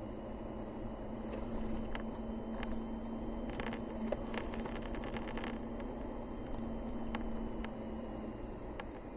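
Vehicle driving on a paved mountain road: a steady engine and tyre hum with a held drone. Scattered sharp clicks or rattles come through, with a quick run of them near the middle.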